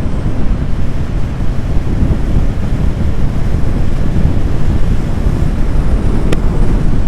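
Heavy wind buffeting on the microphone while riding a motorcycle at road speed, a steady low rush that covers the engine. A single sharp click about six seconds in.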